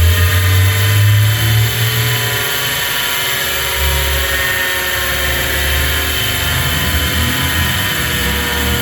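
Panasonic air-conditioner outdoor-unit fan motor spinning very fast on overvoltage: a loud, steady multi-tone whine over a low rumble.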